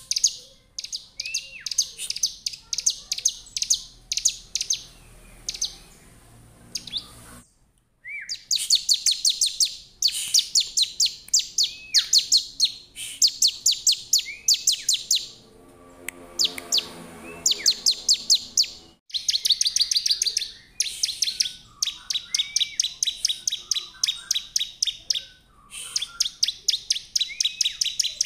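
Bar-winged prinia (ciblek) singing: phrase after phrase of rapid, sharp, high chips, several a second, separated by short pauses.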